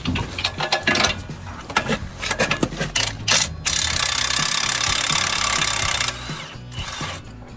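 Metal tool clinks and knocks, then a power tool runs steadily for about two and a half seconds and stops, over background music.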